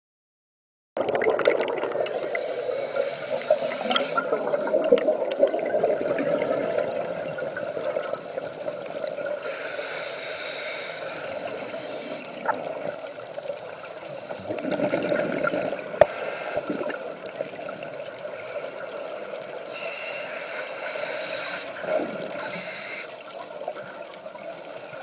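Underwater sound picked up by a camera in a dive housing: a steady muffled rush of water, with bubbling hiss every several seconds as a scuba diver breathes out through a regulator. It starts about a second in.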